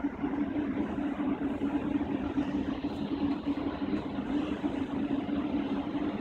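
Steady hum of a Siemens Class 700 electric multiple unit standing at the platform, its onboard equipment running, heard as an even low drone with one strong pitch.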